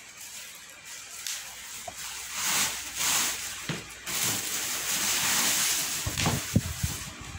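Plastic packing sheet and bubble wrap rustling and crinkling in swells as they are pulled off a flat-screen TV, with a few soft knocks near the end as the TV panel is handled.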